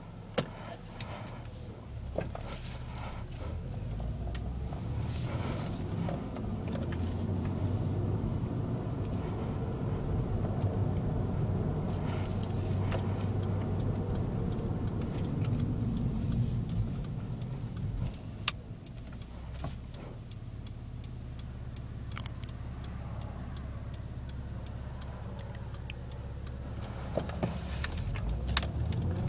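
Cabin sound of a 2008 Acura TL Type-S's 3.5-litre V6 under light throttle: a low, quiet engine hum over road noise. It builds for the first quarter of a minute, eases off, then rises again near the end, with a few sharp clicks.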